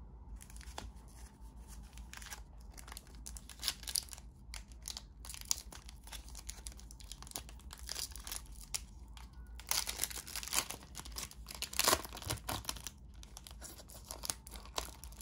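Foil wrapper of a Panini Prizm basketball card pack crinkling and tearing as it is opened by hand, in uneven spurts of crackling, busiest in the second half.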